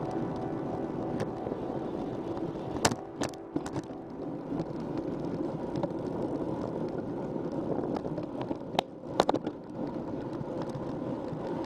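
Wind buffeting the microphone and tyres rumbling over pavement during a ride, played back at double speed. A few sharp clicks and rattles come about three seconds in and again around nine seconds.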